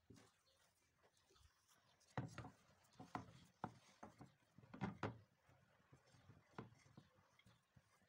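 Hands kneading and pressing a mashed potato mixture in a bowl, faint at first. From about two seconds in there is an irregular string of soft thumps and knocks as the bowl is worked on a wooden chopping board.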